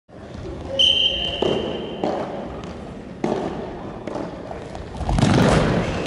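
A referee's whistle gives one steady blast about a second long. It is followed by several sharp thuds of a futsal ball being kicked and striking in a gym hall, and a louder rush of voices near the end.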